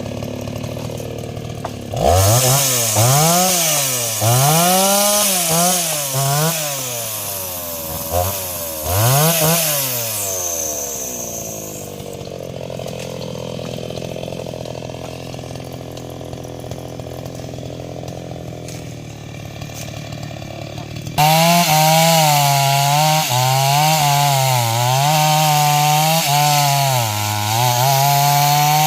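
Stihl MS 381 two-stroke chainsaw idling, then revved up and down several times before settling back to idle. About three quarters of the way through it is opened up to high revs and held there, its pitch repeatedly dipping and recovering as it cuts into wood.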